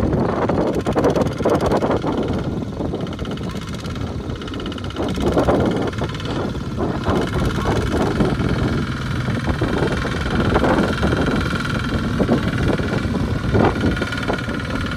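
A two-wheel walking tractor's single-cylinder diesel engine runs steadily under load, hauling a trailer laden with rice sacks through a muddy field.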